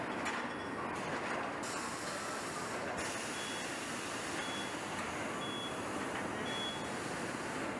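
Steady machinery noise of an engine assembly plant floor, with four short high electronic beeps about a second apart starting a little before halfway.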